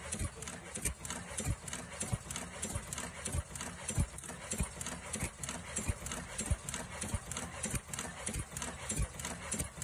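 Automatic mask ear-loop welding machine running: a steady rhythmic mechanical clatter, with a sharp knock just under twice a second and quicker light ticks between.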